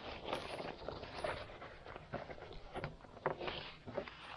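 Handling noise from a cordura pouch and backpack being lifted, moved and set on a wooden table: irregular rustles, scrapes and soft knocks.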